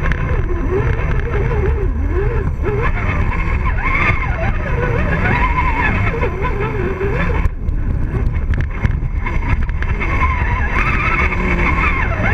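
Axial RC rock crawler's electric motor and gearbox whining, the pitch wavering up and down as the throttle changes, over a steady low rumble on the truck-mounted camera. The whine briefly drops out about halfway through.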